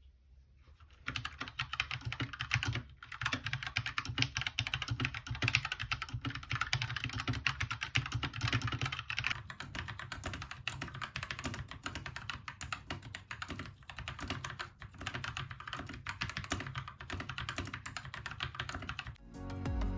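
Keychron K2 mechanical keyboard with Gateron Brown switches being typed on quickly and continuously: a dense, irregular clatter of keystrokes starting about a second in, with a brief pause near the three-second mark and stopping just before the end.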